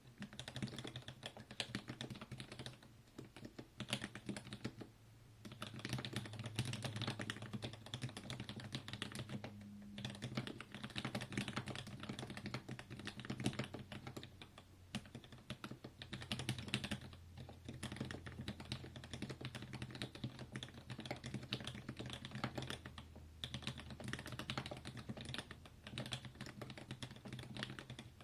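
Typing on a Switch Couture Alice mechanical keyboard fitted with lubed milky Gateron Yellow linear switches, Everglide stabilizers and a 5 mm integrated plate. The keystrokes come in a fast, continuous run, broken by a few short pauses.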